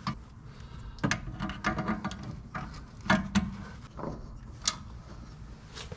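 Irregular metal clunks and knocks as a coilover strut assembly is worked up into its strut tower by hand, with a cluster of knocks about two seconds in and a single sharp knock near the end.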